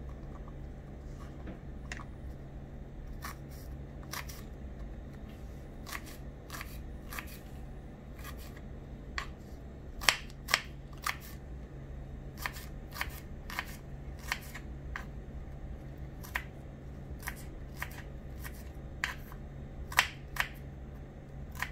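Small knife chopping garlic cloves on a bamboo cutting board: irregular sharp taps of the blade hitting the board, a few a second, over a steady low hum.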